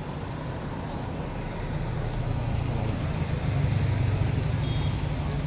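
Road traffic: a car's engine and tyres running by on the road, growing louder about halfway through.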